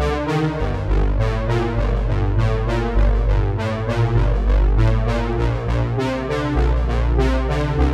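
Background music: keyboard chords over a deep, changing bass line.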